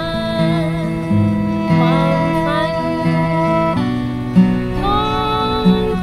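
Live acoustic performance: a woman singing in Thai over her own strummed acoustic guitar, with a violin playing long gliding lines alongside.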